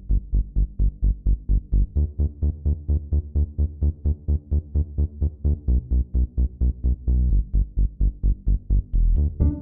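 Electronic background music with a fast, even pulsing beat, about four to five notes a second; a sustained chord comes in near the end.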